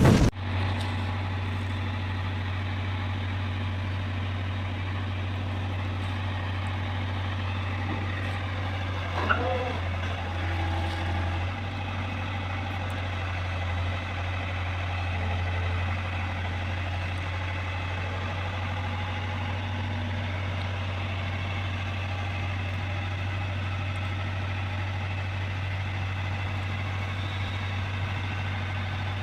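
Heavy vehicle engine running steadily at a constant low hum, with a short knock about nine seconds in.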